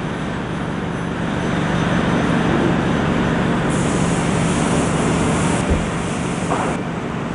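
Forklift engine running steadily under load, with a higher hiss joining for about two seconds midway.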